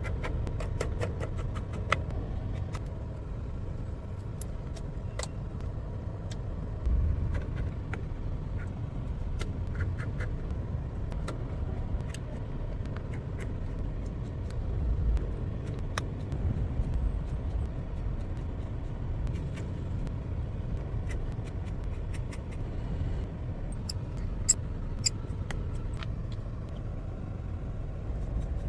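A steady low car rumble, as from an idling engine heard inside the car, with many small sharp clicks and taps scattered through it from hand tools and parts during a phone charging-port repair.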